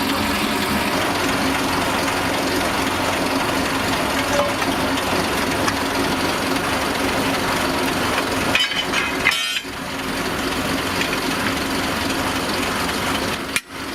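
Tractor engine running steadily, with a few brief clicks about nine seconds in; the sound drops away abruptly near the end.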